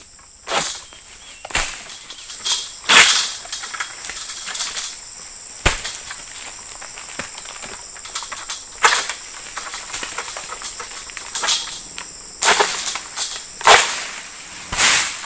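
A long-pole harvesting sickle (egrek) jerked against oil palm frond stalks in the crown: about ten irregular scraping, cracking strokes, each with a rustle of palm leaves, and one sharp crack about six seconds in.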